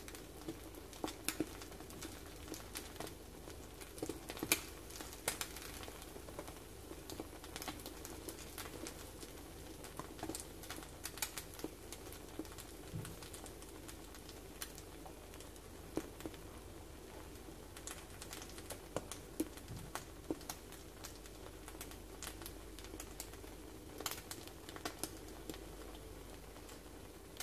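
Omelette frying in a non-stick pan, puffed up by hot air trapped under the egg: scattered, irregular crackles and pops over a faint steady hum.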